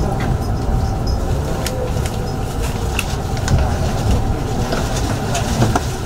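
Inside the cabin of a JR 681 series electric train moving along a station platform: a steady low running rumble with a few scattered light clicks.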